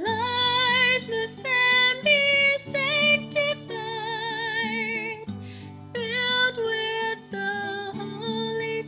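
A woman singing held notes with vibrato, accompanying herself on a strummed acoustic guitar.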